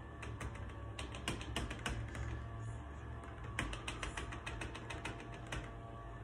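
Rapid, irregular clicking of the buttons on an electric oven's control keypad, pressed over and over to raise the set temperature to 425°F.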